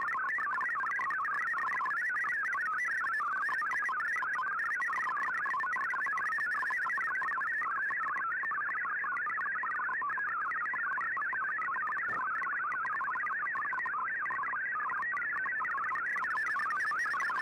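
MFSK digital-mode data signal from a shortwave broadcast, heard through an Icom IC-R8600 receiver: a steady, dense warble of rapidly hopping tones that carries text for decoding.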